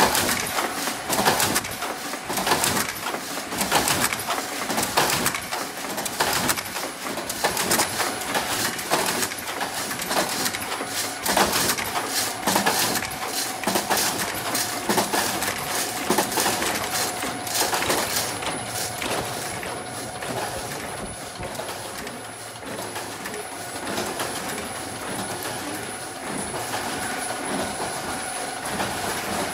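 Automatic face-mask making machines running: rapid, continuous mechanical clicking and clattering from the moving stations over a steady hum and a faint high whine. The clatter thins out a little past the halfway point.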